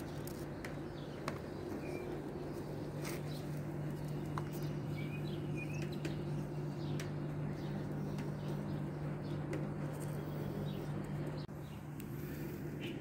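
Short, faint bird chirps every few seconds over a steady low hum, with scattered small clicks.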